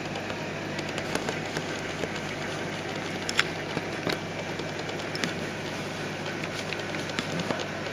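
Red Sea Max 130D all-in-one reef aquarium running: a low steady pump hum under a rush of circulating water and bubbles, with scattered sharp ticks.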